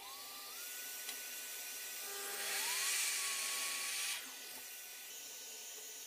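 Evolution mitre saw running: the motor spins up with a rising whine, then cuts through a small strip of pallet wood. The cutting noise is loudest between about two and four seconds in, then drops off.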